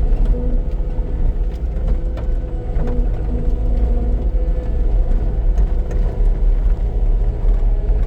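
Cat 259D compact track loader's diesel engine running steadily while working, with short higher tones coming and going over the steady engine note.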